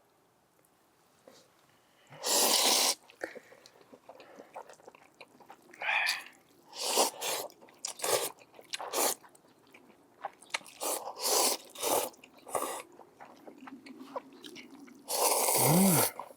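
Cold buckwheat makguksu noodles being slurped and chewed, a string of short loud slurps and chewing noises after a quiet start.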